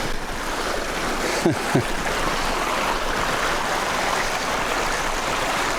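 Water of a small creek waterfall rushing and splashing over rocks, a steady even rush.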